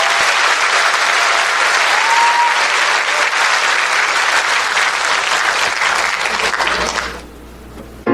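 Studio audience applauding, a dense patter of many hands clapping that dies away about seven seconds in.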